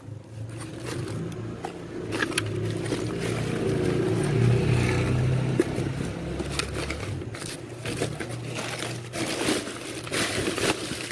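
Plastic wrap and cardboard crinkling and scraping as a gloved hand rummages through a box of trash. Under it, a passing vehicle's engine hum grows to its loudest about four to five seconds in, then fades.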